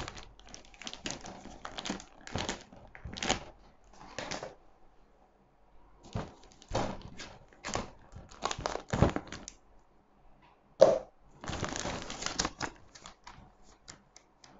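Clear plastic bag crinkling and rustling as it is handled and cut open with scissors, in short irregular rustles and snips with a pause about five seconds in. A single sharper knock comes about eleven seconds in, and paper pages are handled near the end.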